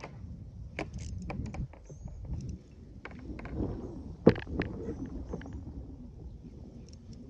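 Handling noises in a kayak: scattered clicks and knocks on the hull over a low rumble, with one sharp knock, the loudest, about four seconds in.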